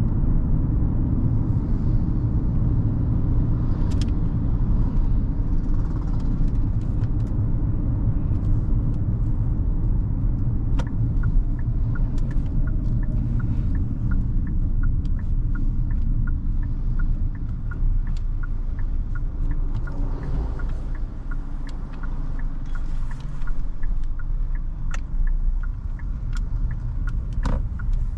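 Hyundai Creta's 1.5-litre four-cylinder petrol engine and tyres giving a steady low driving rumble on the move. In the second half a light regular ticking, about two a second, runs alongside it.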